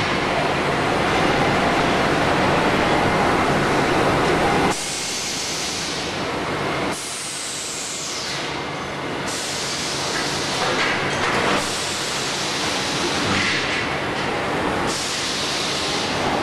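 Motorcycle wheel rim roll forming machine running: a steady din of machinery that drops suddenly in level about five seconds in and again about seven seconds in. A high whine falls in pitch about eight seconds in.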